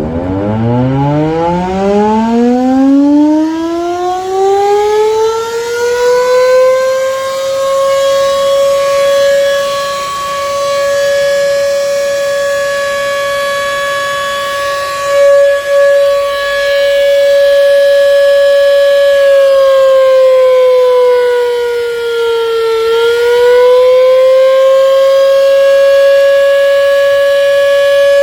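The old 'gaok' electric air-raid siren, a fixed horn-type siren, winds up from a low growl to a steady high wail over about seven seconds and then holds the tone. Its pitch sags briefly about twenty seconds in and recovers. It is the signal that the time to break the Ramadan fast has come.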